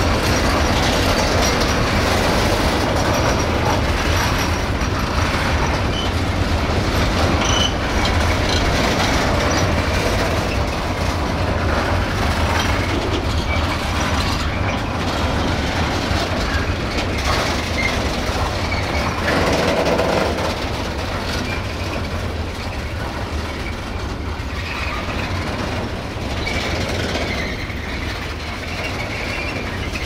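Covered sliding-wall freight wagons rolling past close by: a steady rumble of steel wheels on rail with faint wheel squeal, easing slightly about two-thirds of the way through.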